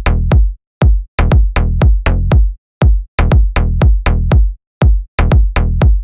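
Slap house bass line from a three-layer Serum synth bass (sub, mid-bass and click layers) playing with a drum-machine kick: a repeating syncopated pattern of short punchy notes, each with a sharp click and a quick downward sweep, over heavy low end.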